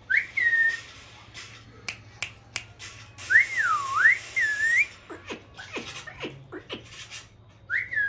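Whistling: a short rising whistle at the start, a longer swooping down-and-up whistled phrase about three seconds in, and another rising whistle near the end, with light clicks and short chirps in between.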